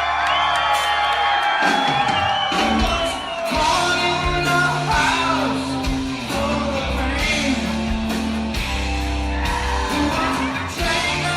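Live rock band playing in a large hall: electric guitar lines bending in pitch, joined about two seconds in by bass and drums, with singing.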